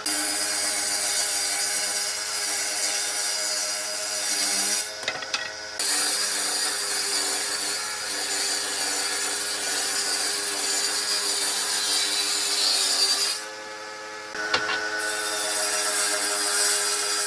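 An electric power tool running against wood: a steady motor whine under a coarse grinding hiss. The sound drops out twice for a second or so, about five seconds in and again near thirteen seconds.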